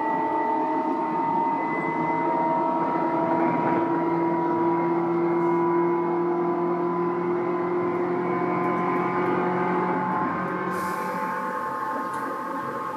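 Running sound of a Tobu 9000 series electric train heard from inside the car: a whine of several tones from the traction equipment rises slowly in pitch over the running noise. About ten seconds in the whine fades and a high hiss comes in.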